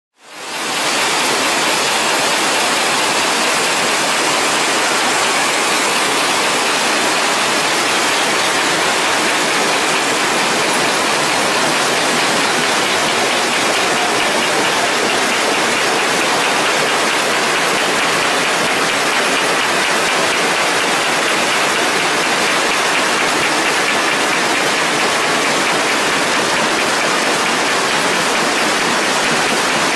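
Steady, even hiss-like din of factory machinery running on the production line, with no clear beat, fading in over the first second.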